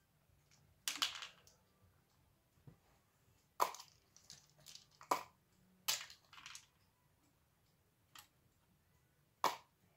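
Sharp clicks and knocks of hard parts and hand tools being picked up and set down on a hybrid car battery pack, a handful of separate knocks at irregular spacing with a little rattling between them.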